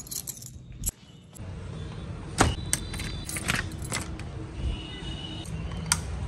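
Keys jangling and the clicks of a door being locked, then a sharp click near the end as a wall light switch is flicked, over a steady low background rumble.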